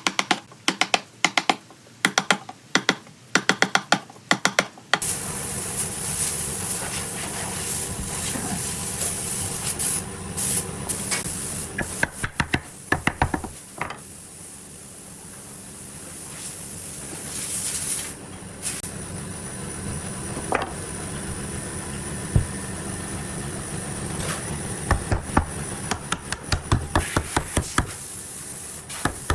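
Quick repeated hammer-like strikes, about three a second, stop about five seconds in. A steady hissing noise with scattered knocks follows, and the strikes start again near the end.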